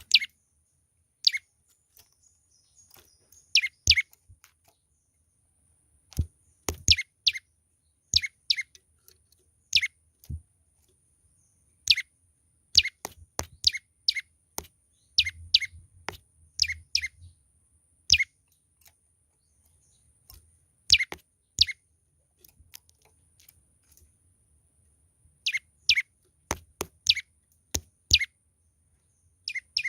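Young prenjak lumut, a small songbird, calling vigorously: short sharp notes that sweep downward, given singly or in quick clusters of two to four, repeated irregularly every second or two.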